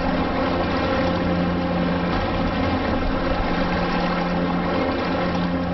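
A steady engine drone over a low rumble, with a few held tones that break off briefly twice.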